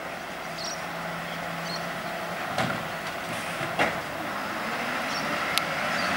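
Volvo garbage truck engine running steadily at low speed, slowly growing louder as the truck comes closer. There are two short knocks, about two and a half and four seconds in.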